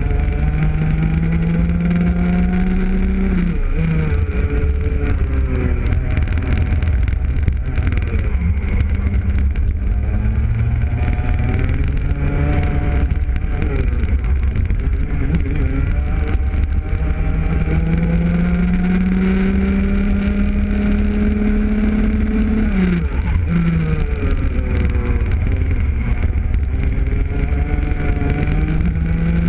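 Rotax Junior Max 125cc two-stroke kart engine at racing speed. Its pitch climbs steadily along the straights and drops sharply several times as the driver lifts for corners, over a steady low rumble.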